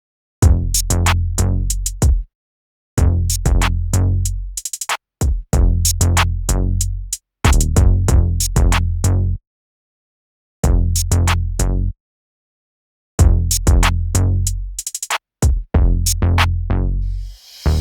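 Electronic bass test music: a drum machine beat with heavy deep bass, playing in short phrases broken by sudden dead-silent stops, with a burst of rapid repeated hits a few times.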